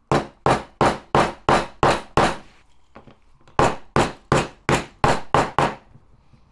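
Small mallet, its rubber end striking metal, tapping in two quick runs of about seven sharp knocks each, roughly three a second, with a pause of about a second between them: driving a bearing into its seat in the drive case.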